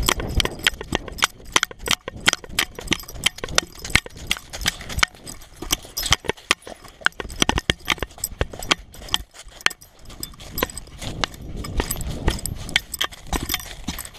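A dog moving quickly over grass and snow, heard from the camera strapped to it: a rapid, irregular run of clicks and knocks from its footsteps and the jostling camera mount.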